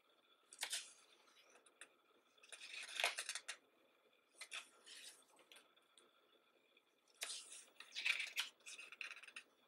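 Pages of a thick hardcover photo book turned and smoothed flat by hand: paper rustling and sliding in several short bursts, the longest about three seconds in and from about seven to nine and a half seconds.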